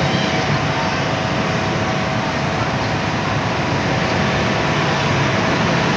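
Steady train noise from the rail yard: an even rumble and rush with a faint steady tone above it.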